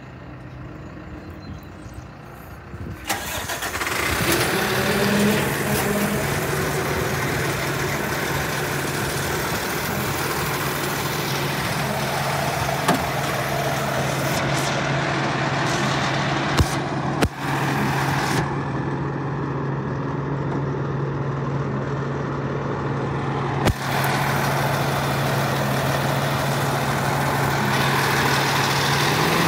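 Bucket truck's engine starts about three seconds in and settles into a steady idle. A few sharp clunks sound partway through.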